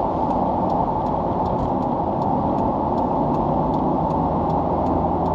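Car driving in traffic, heard from inside the cabin: a steady rumble of engine and tyres on the road.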